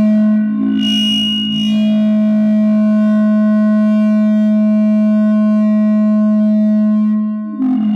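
No-input mixer feedback drone: a two-channel mixer looped back on itself through an effect pedal, holding a steady buzzing tone with many overtones. About a second in a short flare of noise with a high whistle passes over it. Near the end the drone briefly sags and shifts before settling again.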